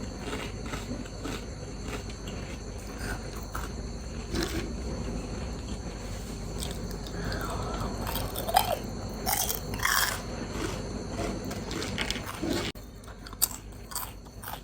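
A person chewing and biting into crunchy seaweed snacks and noodles, with scattered wet clicks and crackles from the mouth and food.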